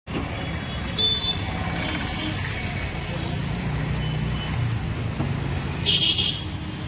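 Street traffic: a steady low rumble of passing motor vehicles, with a short high-pitched sound about a second in and another, louder one near the end.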